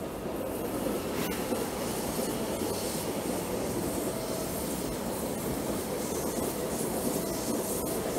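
A Francilien (Z 50000) electric multiple unit passing along a station platform: steady rail rolling noise with a faint steady whine, and a couple of sharp clicks from the wheels on the track.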